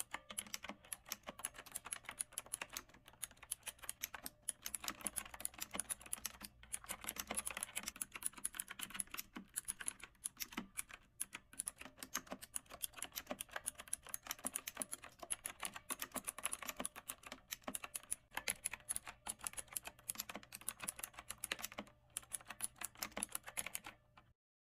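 Fast typing on a computer keyboard: a dense, unbroken run of sharp key clicks, several a second. It cuts off suddenly near the end.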